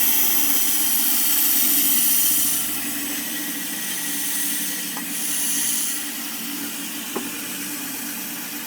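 Homemade sawmill running on its 14 horsepower Kohler engine, a steady hum throughout. A loud high hiss drops away after about two and a half seconds and comes back briefly about halfway through.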